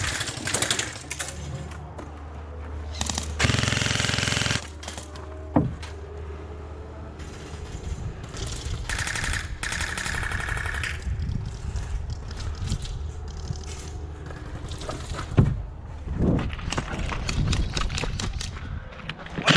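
Airsoft guns firing: a rapid-fire burst lasting about a second starting three and a half seconds in, further rapid bursts around nine to eleven seconds, and scattered sharp pops and clicks near the end.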